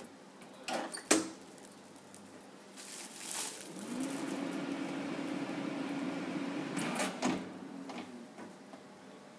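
Minipack Minima bell-type shrink-wrapping sealer running a cycle: the hood shuts with a sharp clack about a second in. About four seconds in, a steady hum rises in and runs for about three seconds while the closed chamber seals and shrinks the film. It stops with a couple of clicks as the hood opens.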